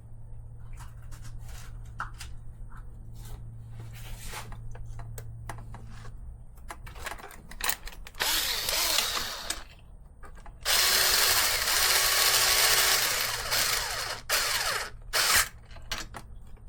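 Small handheld power driver running in several short bursts, the longest about three seconds, typical of driving screws into the car's chassis parts. Before it come light clicks of small parts being handled.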